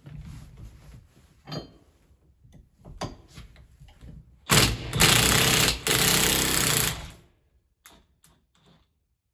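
Cordless impact wrench hammering on a hydraulic cylinder's tie-rod nut through a regular chrome socket, breaking it loose. It runs for about two and a half seconds in three short bursts, starting about four and a half seconds in, after a few seconds of light clicks and tool handling.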